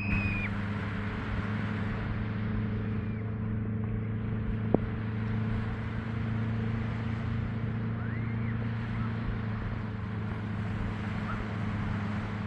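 A steady low engine drone over a wash of beach noise, with a sharp click about five seconds in and a few faint high chirps.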